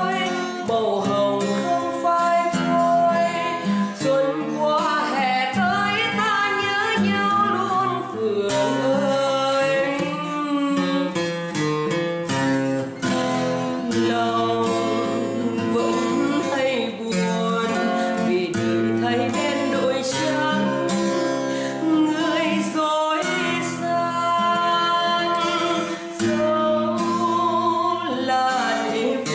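Music: a song with a singing voice over acoustic guitar.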